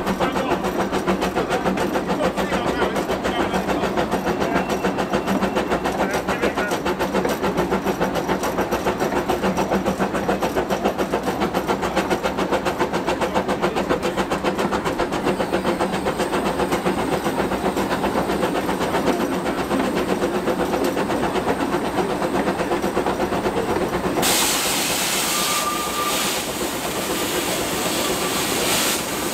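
Small narrow-gauge steam locomotive heard from its cab while running, with a rapid, even exhaust beat and the clatter of the engine. Near the end a loud hiss of steam starts and carries on.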